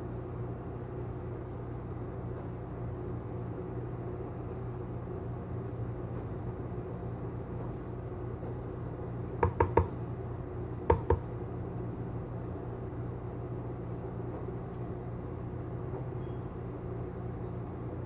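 A wooden wax applicator stick clinks lightly against the wax warmer's pot as melted hard wax is scooped: three quick clinks about halfway through, then two more a second later, over a steady low hum.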